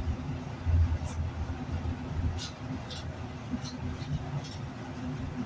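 A boning knife working along a hanging beef hindquarter, with short sharp scrapes and clicks of the blade against bone at irregular moments. Under it runs a steady low hum.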